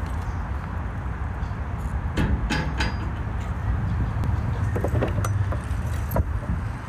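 A few sharp metallic clinks and knocks as grill tools and a metal grate are handled: a cluster a couple of seconds in and more near the end. A steady low rumble runs underneath.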